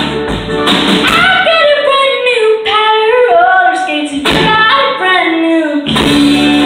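A young female singer's voice with a live band of guitars, bass and drums. The bass and drums drop out for stretches, leaving the voice nearly alone, and the full band comes back in about six seconds in on a held note.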